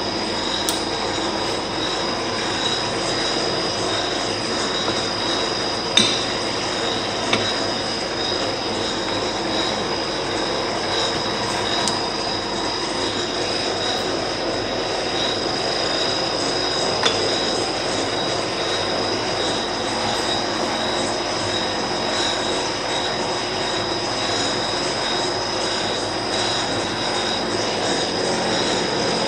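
Monarch lathe running, a steady mechanical whir with a steady high whine over it. A few sharp clicks come through as its control levers are worked.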